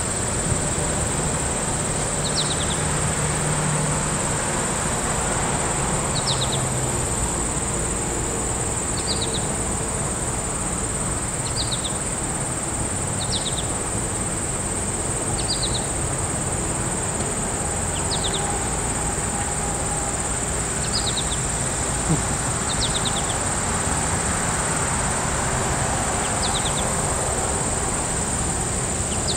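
Steady high-pitched drone of insects in summer vegetation, with a bird repeating a short phrase of three or four quick chirps about every two to three seconds.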